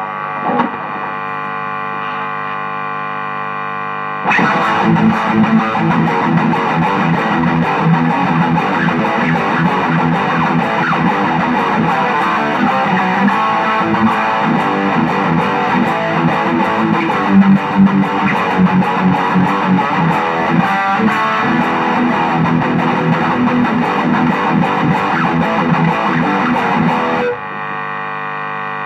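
Blackstar HT-Metal distortion pedal on its high-gain second channel: a steady electrical buzz for about four seconds, then electric guitar played through heavy distortion, with the buzz returning near the end once the playing stops. The buzz is the noise of the channel being tested, which the player calls the problem channel.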